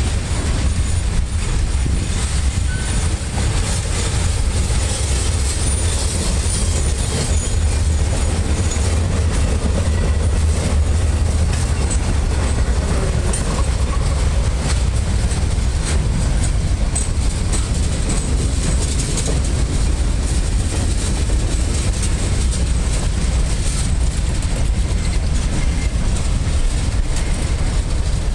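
Freight train cars rolling steadily past close by: a continuous low rumble of steel wheels on rail, with repeated clicks as the wheels pass over the rail joints.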